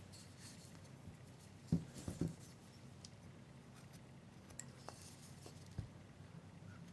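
Hand carving knife cutting and scraping small chips from a wooden figure, faint, with a few soft knocks about two seconds in.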